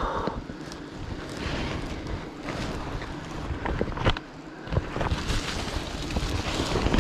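Rumbling wind and handling noise on a body-worn camera's microphone as a woven plastic sack is worked against a tree trunk, with rustling and a few sharp knocks about four and five seconds in.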